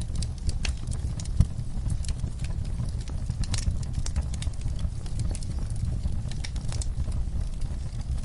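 Fireplace wood fire crackling: irregular sharp pops and snaps, several a second, over a low steady rumble of the flames.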